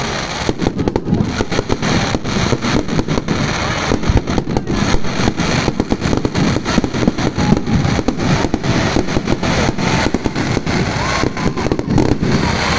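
Fireworks display going off in a dense, continuous barrage of sharp bangs and crackling.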